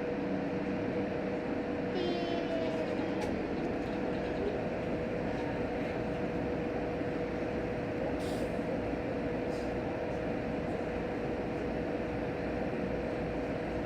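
Cabin noise inside a JR Hokkaido H100 diesel-electric railcar on the move: a steady rumble of wheels on the rails with a steady electrical hum from the drive. A short hiss comes about eight seconds in.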